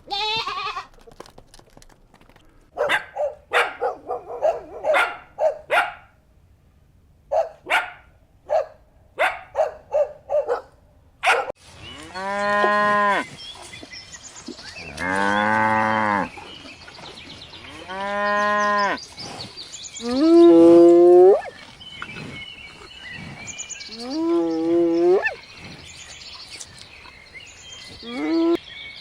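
A rapid series of short animal calls, then cattle mooing: six long calls, one every two to four seconds, several rising in pitch.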